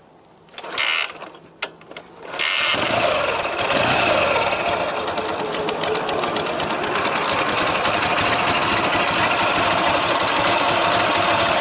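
Ural motorcycle's flat-twin engine turned over in a few short bursts, catching about two and a half seconds in and then idling steadily. It carries an extra noise from the timing-gear area, which the rider fears is a loose generator drive gear.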